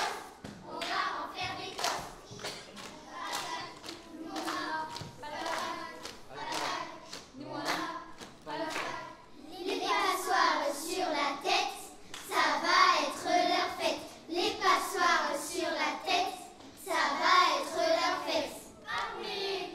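Children's choir singing over steady rhythmic hand clapping, about two claps a second; the singing gets louder about ten seconds in.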